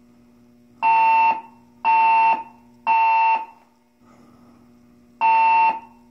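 Building fire alarm sounding the temporal-three evacuation signal: three loud half-second tones about a second apart, a pause, then the first tone of the next group of three. It is the signal to evacuate the building.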